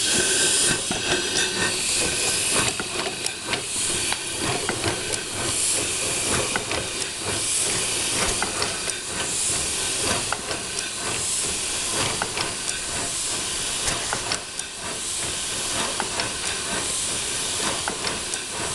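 Live-steam model 2-6-0 locomotive running on a roller stand: a steady hiss of steam, with louder puffs every second or two and sharp clicks from the moving rods and valve gear.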